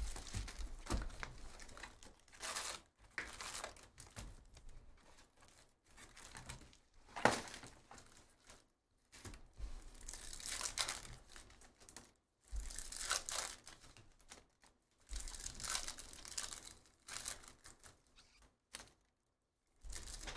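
Plastic shrink-wrap and foil wrappers of Bowman University Chrome basketball card packs being torn open and crinkled by hand, in irregular bursts with short pauses between.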